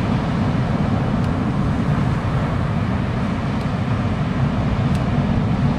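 Steady low roar of ocean surf breaking on the beach, with a few faint ticks.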